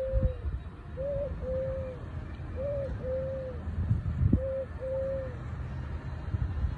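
Eurasian collared dove cooing: three phrases, each a short coo followed by a longer, drawn-out one. Under the calls is a low rumble with a couple of thumps, the loudest about four seconds in.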